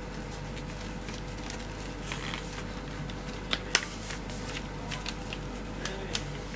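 Sheet of paper being folded and creased by hand: soft rustling with a few sharp crinkles and taps, the loudest about three and a half seconds in, over a steady low hum.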